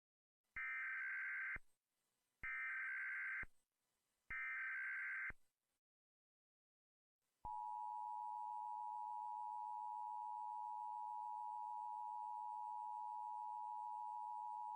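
Emergency Alert System test: three one-second bursts of the SAME digital header, a harsh warbling data sound, then after a short silence the two-tone EAS attention signal begins about seven and a half seconds in, a steady dual tone just under 1 kHz.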